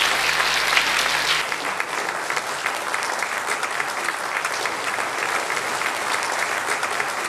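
Audience applauding: many people clapping steadily, easing slightly about a second and a half in.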